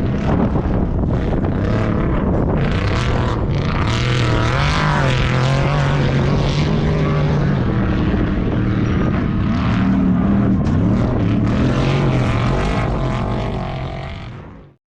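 Off-road race vehicle's engine running hard, its pitch rising and falling with the throttle, then fading out about a second before the end.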